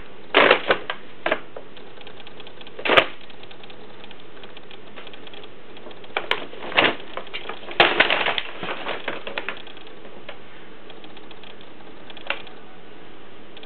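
Brown paper bag crinkling and rustling in irregular bursts as a kitten pounces on it and paws inside it, with the busiest flurry a little past the middle.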